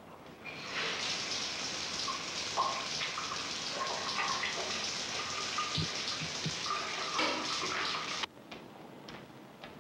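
Shower running, a steady spray of water that starts about half a second in and stops abruptly near the end.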